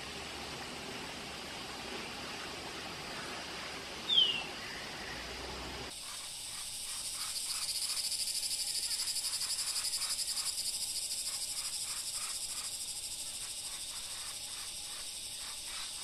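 Forest field recording: a single short, falling bird note about four seconds in, over a hissy background. From about six seconds a loud, rapidly pulsing high-pitched insect buzz sets in, swells and slowly fades.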